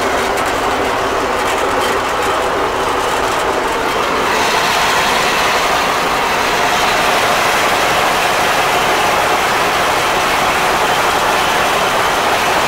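A Fortschritt E303 self-propelled mower running, heard from inside its cab: a steady mechanical clatter of the engine and header drive. It gets a little louder about four seconds in.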